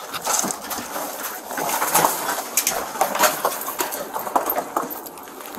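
Close rustling with irregular knocks and clicks as gloved hands and gear move through clutter against a body-worn camera.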